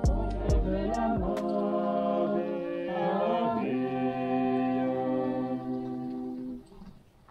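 Several voices singing together in harmony, choir-like, holding long chords, with a few deep thumps in the first second or so. The singing ends with a held chord and stops shortly before the end.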